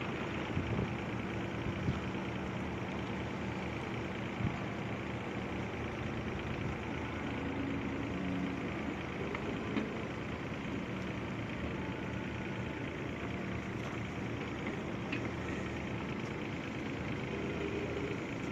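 Backhoe's diesel engine running steadily, with a few light knocks.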